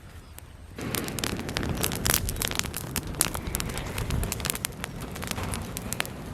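Dense crackling and sizzling from campfire cooking, with many sharp pops, starting abruptly about a second in.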